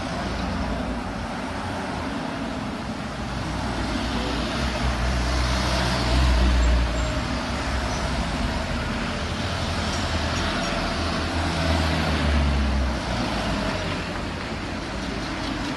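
A line of cars and SUVs driving past one after another: engine rumble and tyre noise swelling as each vehicle passes, loudest about six and twelve seconds in.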